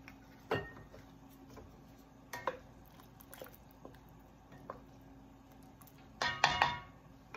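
Knocks and clinks of glass condiment bottles and cookware handled on a kitchen counter beside the stove: a few single knocks spaced apart, then a louder cluster of ringing clinks near the end.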